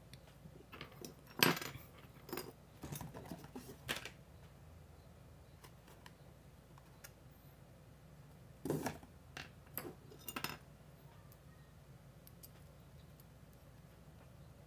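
Small plastic Beyblade parts and their clear plastic packaging bag being handled: scattered light clicks and crinkles. They come in two bursts, one from about a second to four seconds in and another around nine to ten seconds in.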